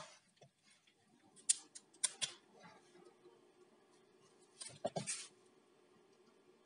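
Faint sharp clicks and handling noise as an Ethernet cable's plug is pulled out of its port, a few clicks about a second and a half in and another cluster near five seconds, over a faint steady hum.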